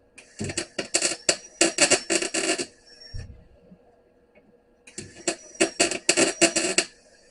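Harbor Freight MIG welder striking an arc on car floor-pan sheet steel in two short crackling bursts, the first about two and a half seconds long and the second about two seconds, with a pause between: stitch welds laid bit by bit to butt-weld a patch panel.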